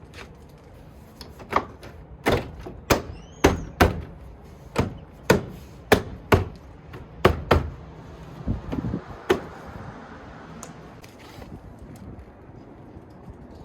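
A dozen or so sharp knocks, irregular and roughly one a second, as a car's inner door trim panel is struck to snap its clips back into the door. The knocks stop about nine and a half seconds in.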